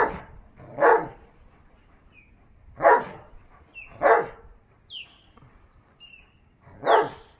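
A Briard barking in play, five single barks spaced unevenly about one to three seconds apart.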